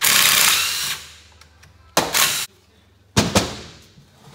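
DeWalt cordless power tool whirring for about a second as it spins out an 8 mm bolt on a motorcycle engine's clutch-side cover, with a shorter whir about two seconds in. A knock follows a little after three seconds.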